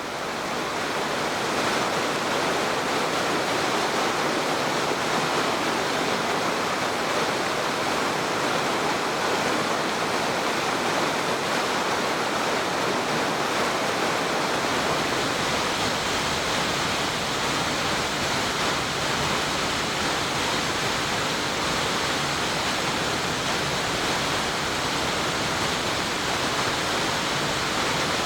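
A large, full-flowing waterfall pouring in a steady, loud rush of water that fades in over the first second or two.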